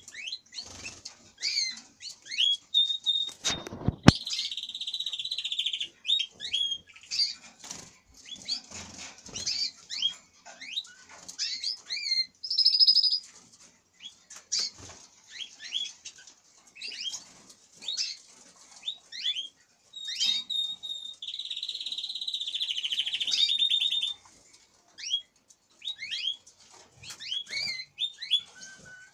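Many caged canaries singing and calling: a steady stream of short chirps and rising whistles, with long, fast rolling trills twice. A single sharp knock about four seconds in is the loudest sound.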